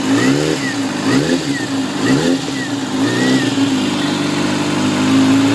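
Kawasaki ZX-6R inline-four engine at idle, given several short throttle blips in the first three seconds or so and then left to idle steadily. A faint high-pitched tone rises and falls with each blip.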